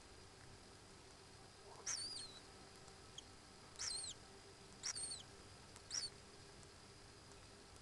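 Common kingfisher giving four short, high-pitched whistled calls about a second apart, each sliding in pitch.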